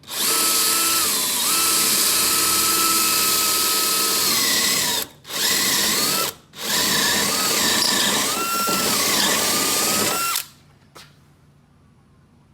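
Power drill with a step bit boring through sheet steel, its motor whining and shifting in pitch under load. It stops briefly twice, about five and six and a half seconds in, then stops for good about two seconds before the end.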